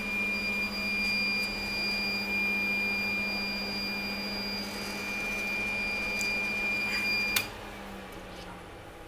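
Small infrared reflow heater running with a steady hum and a high whine after its soldering cycle, then cutting off with a sharp click about seven seconds in.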